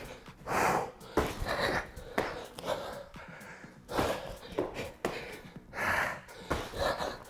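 A man's heavy, forceful breathing from exertion: hard exhales and gasping inhales in an uneven rhythm, about one a second.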